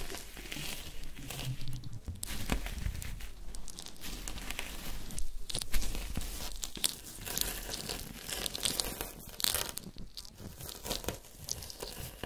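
Irregular crinkling, crackling noise, like paper or plastic being crumpled and torn, with no music or speech.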